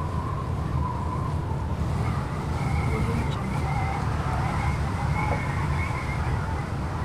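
Blustery wind: a steady, heavy low rumble of gusts with a thin, wavering whistle howling over it at two pitches.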